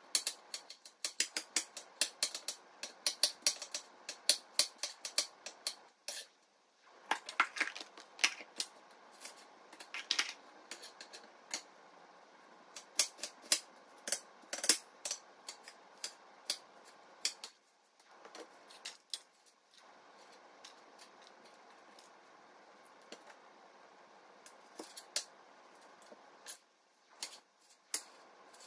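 Chef's knife chopping on a cutting board: quick runs of sharp taps in bursts, with short pauses between them, as garlic, red onion and tomatoes are cut.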